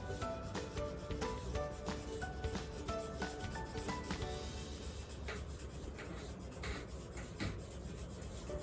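A colouring tool rubbing back and forth on paper in quick repeated strokes as a drawing is coloured in. Light background music with short notes plays under it and drops away about halfway through.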